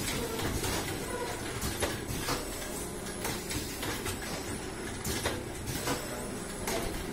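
KTK automatic screen printing machine running: a steady mechanical hum with repeated short clacks at irregular intervals and a faint high whine that comes and goes.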